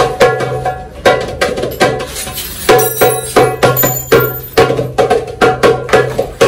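Egyptian tabla (goblet drum, darbuka) played by hand: a rhythm of about three strokes a second, deep ringing tones mixed with sharp slaps on the head.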